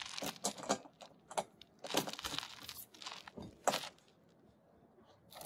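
Irregular metal clicks and scrapes from an electronic torque wrench as its socket is fitted onto and turned on a solar rail's mounting bolt.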